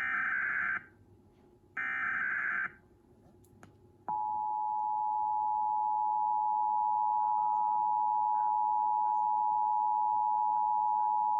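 Emergency Alert System broadcast signal. First come two short bursts of the SAME digital header, a screeching warble of data tones each lasting under a second. About four seconds in, the EAS two-tone attention signal starts: a steady, piercing dual tone that holds unbroken.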